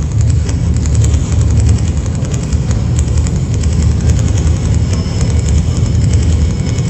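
Experimental electronic music from a live set over PA speakers: a loud, dense, steady low rumble with scattered crackles and clicks and no beat. A thin high tone comes in near the end.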